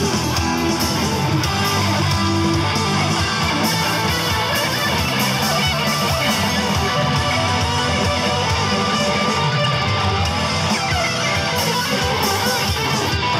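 A live band plays electric guitars, including a Les Paul-style guitar, over bass guitar and an electronic drum kit, loud and steady with a regular drum beat.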